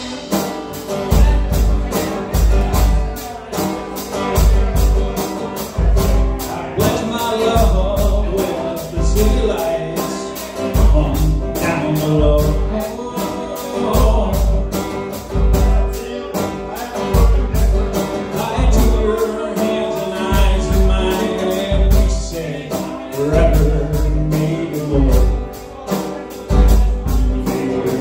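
Live acoustic guitar strummed with a drum kit keeping a steady beat, kick drum thumping about once a second under busy hi-hat strokes, while a man sings.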